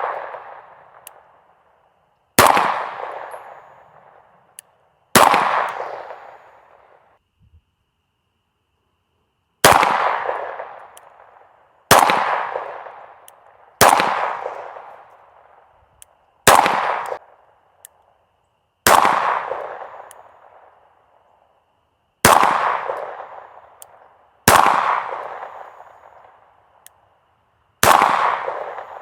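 Springfield Prodigy compensated pistol fired in slow, deliberate single shots, about ten in all, two to three seconds apart. Each shot is followed by a long echoing decay. The spacing fits aimed fire while zeroing a red-dot sight.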